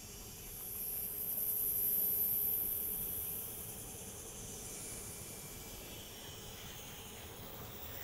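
TIG welding arc hissing during a tack weld on stainless steel, swelling from about half a second in and easing off after about three seconds into a fainter steady hiss.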